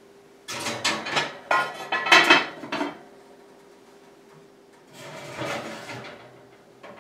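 Stoneware clay baker bases clattering and scraping against the metal oven rack as they are set in the hot oven, a quick run of knocks over about two seconds, then a softer scrape about five seconds in.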